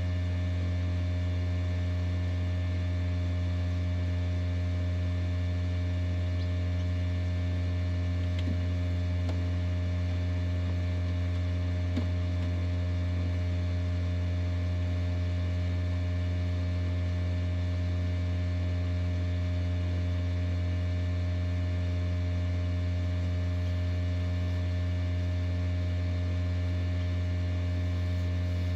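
Egg incubator running with a steady, even hum.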